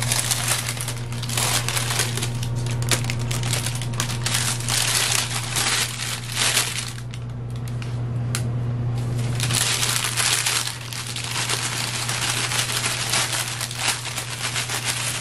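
Parchment paper crinkling and rustling as a freshly baked loaf is lifted out of a stainless steel pot by the paper and moved onto a wire cooling rack, over a steady low hum.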